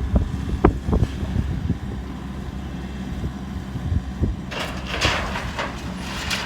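Hydraulic excavator's diesel engine running steadily during demolition work, with a few sharp knocks in the first second and a rough scraping noise from about four and a half seconds to the end.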